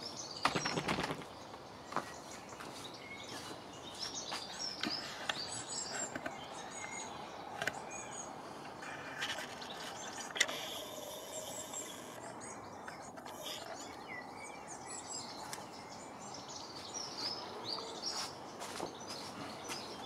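Small garden birds chirping and calling throughout, many short high chirps over a steady outdoor background, with a few sharp clicks and one louder click about ten seconds in.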